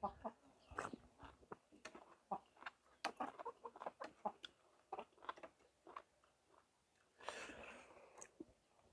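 Someone eating: faint chewing and light clicks of a metal spoon in a bowl of soup, with a soft slurp of mushroom-curry broth from the spoon near the end.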